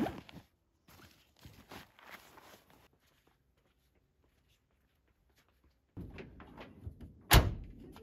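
Faint rustles and light clicks, then about seven seconds in a single loud thunk of a pickup truck's tailgate being shut.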